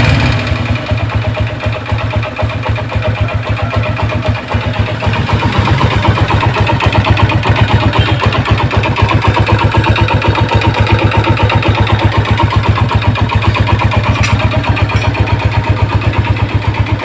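Motorcycle engine idling with a steady, rapid, even pulse, after a rev that dies away at the start.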